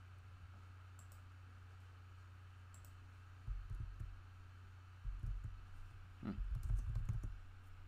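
Keystrokes on a computer keyboard: soft clicks and dull thumps in three short clusters in the second half, over a steady low hum.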